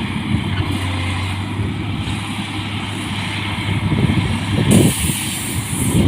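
Rice combine harvester running steadily with a low, even engine hum, joined by a high hiss about five seconds in.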